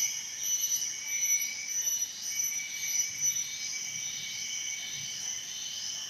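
Shrill insect chorus: several high steady tones that swell and fade in a regular pulse.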